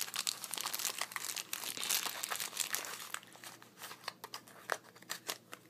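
Thin clear plastic bag crinkling as a die-cast toy model is unwrapped by hand: a dense crackle for about three seconds, thinning to scattered clicks and rustles.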